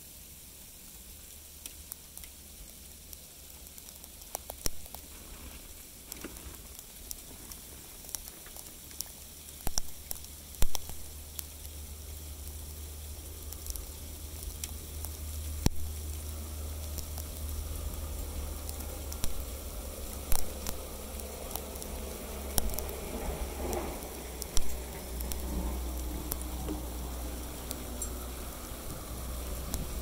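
Dry sleet (small round ice pellets) falling and ticking on snow-covered surfaces: a fine steady hiss scattered with sharp clicks, over a low steady rumble, growing louder from about halfway in.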